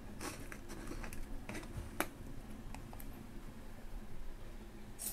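Light, irregular clicks and taps of kitchen utensils, about one or two a second, as salt is spooned in for the dipping sauce.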